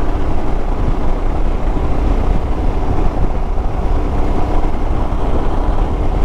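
Royal Enfield Himalayan's single-cylinder engine running steadily as the motorcycle rides along, mixed with wind rumble on the microphone.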